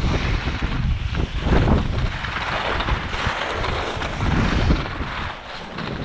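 Strong gusting wind buffeting the microphone: a loud, uneven low rumble with a hiss over it, easing briefly near the end.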